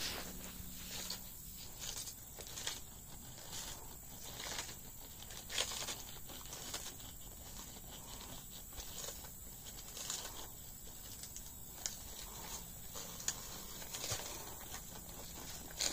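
Sulcata tortoise biting into and tearing romaine lettuce leaves: irregular crisp crunches and rips, roughly one every second or two.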